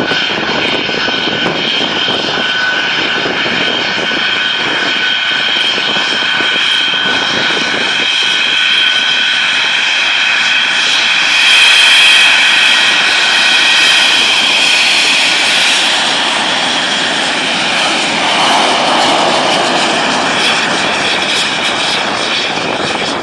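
English Electric Lightning T5's twin Rolls-Royce Avon turbojets running as the jet taxis along the runway: a steady loud jet roar with a high whine, loudest about halfway through as it comes closest.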